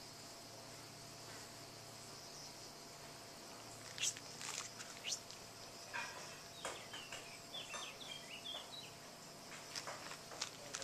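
Insects chirring in a steady, high, even drone. About halfway through, a few sharp clicks and a quick run of short high chirps come in over it.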